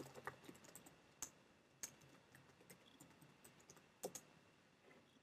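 Faint keystrokes on a computer keyboard, typing a login name and password: a scattering of irregular, sharp clicks, with a louder pair about four seconds in.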